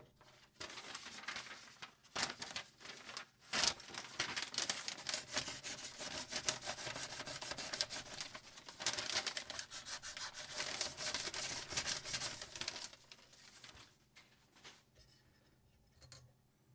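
Knife blade being sharpened, scraping in rapid repeated strokes against a sharpening stone; the scraping starts about half a second in and dies away after about 13 seconds.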